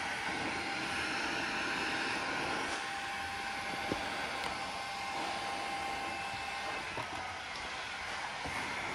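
Hot-air gun set to 110 °C blowing steadily at low flow, drying the slip water off freshly laid polyurethane film; a single click about four seconds in.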